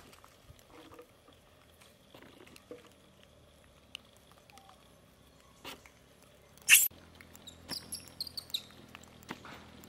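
Long-tailed macaques on the ground: faint scuffles and clicks, then a single short, loud, sharp shriek about two-thirds of the way in, followed by a quick string of brief high squeaks.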